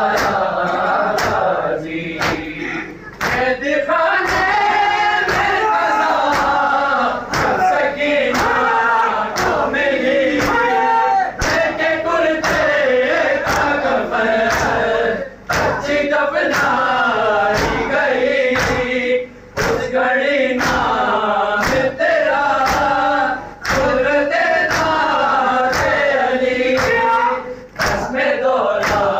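Men chanting a noha (Shia lament) in chorus, with a steady beat of open hands slapping on chests (matam) keeping time.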